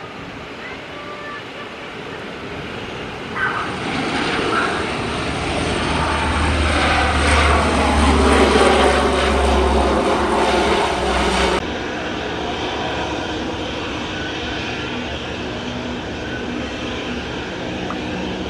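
Lockheed C-130 Hercules landing, its four turboprop engines and propellers droning louder as it comes in and touches down close by. About twelve seconds in, the sound cuts abruptly to the steadier, quieter hum of a Boeing 737-900ER's jet engines running on the runway.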